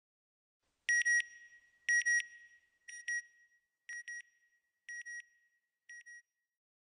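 Electronic double beep on one high, steady pitch, repeated about once a second six times and getting quieter with each repeat.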